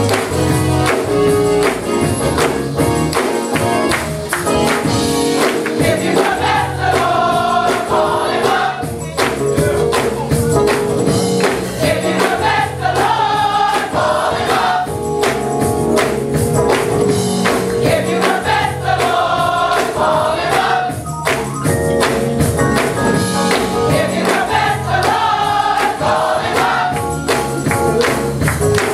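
Women's gospel choir singing an up-tempo song over band accompaniment, with a steady percussive beat.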